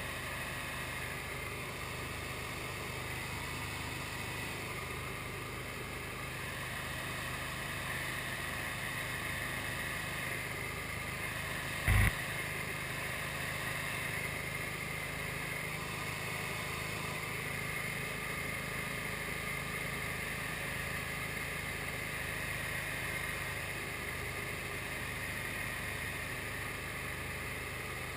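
Engine and propeller of an SD1 Minisport single-seat ultralight aircraft running at a steady cruise setting in flight, a constant drone. A single brief loud knock comes about twelve seconds in.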